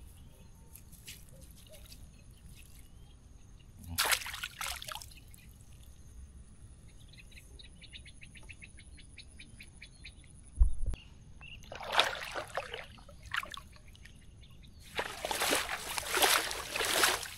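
River water splashing and sloshing as a mesh shrimp trap is dunked and shaken clean, in three bursts, the longest near the end. A single dull thump comes a little past the middle.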